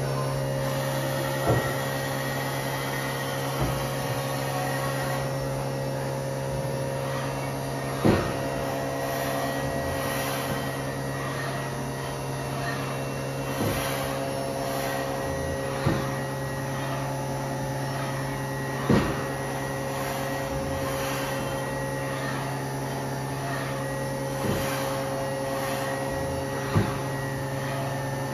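Haas VF-6/40 vertical machining centre running, a steady machine hum with several constant tones, while its table traverses. Short sharp knocks come every two to five seconds, about eight in all.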